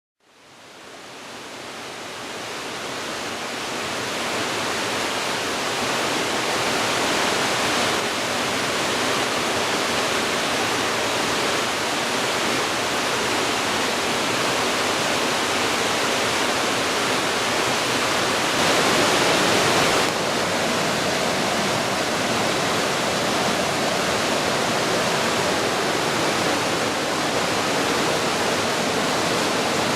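Steady rushing of falling water on Steels Creek, fading in over the first few seconds and briefly louder for a moment about two-thirds of the way through.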